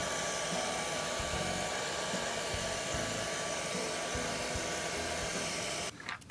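Handheld hair dryer blowing steadily, a rushing air noise with a thin steady whine, switched off abruptly about six seconds in.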